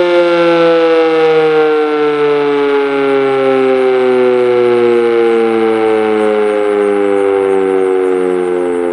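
Sentry 7V8-B outdoor warning siren sounding loud, two tones together like a chord, its pitch sliding slowly and steadily downward.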